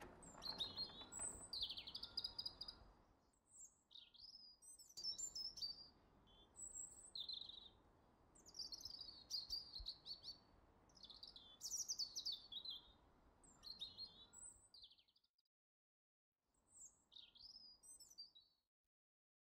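Birds singing: a string of quick, high chirps and warbled phrases over a faint steady hiss, pausing briefly about three-quarters of the way through and stopping shortly before the end.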